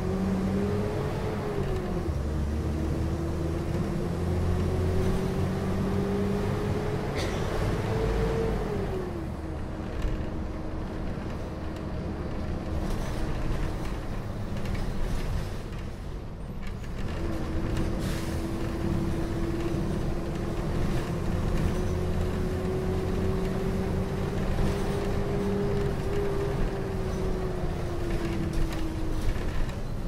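Mercedes-Benz O500M city bus engine running while the bus is under way, heard from on board. A whining tone climbs as the bus gathers speed and falls away about nine seconds in. After a quieter spell it climbs again from about 17 seconds and falls away near the end.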